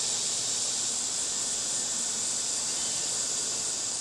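Steady high-pitched chorus of insects buzzing in the summer woods.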